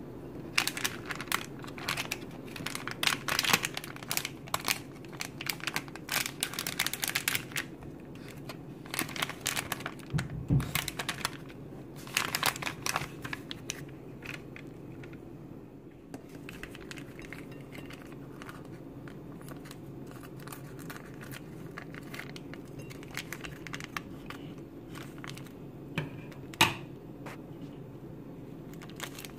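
Crinkling plastic and foil snack packaging being handled and opened, dense and loud through the first half, then sparser and quieter. There is a dull thump about ten seconds in and one sharp click near the end.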